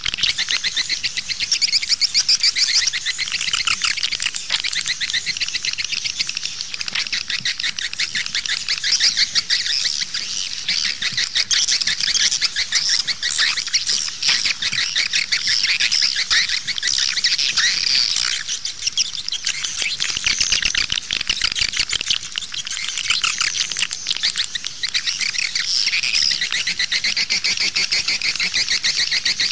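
Swiftlet lure call recording: a dense, unbroken chorus of fast, high twittering swiftlet chirps. It is the 'outside' call played from a swiftlet house to draw wild swiftlets in.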